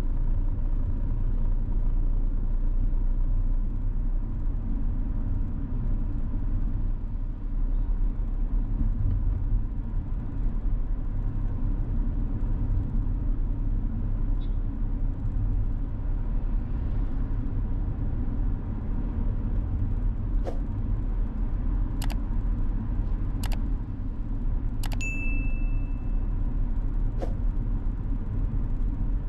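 Steady low rumble of a car being driven, with a faint steady hum. A few sharp clicks come in the second half, and a short high beep sounds near the end.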